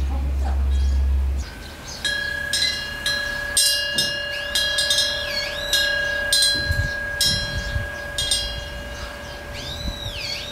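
Small metal Korean eave wind bell (pungyeong) with a fish-shaped wind catcher, its clapper striking about ten times at irregular intervals in the breeze, each strike leaving a steady ringing tone that carries on between strikes. A low rumble fills the first second and a half before the bell starts.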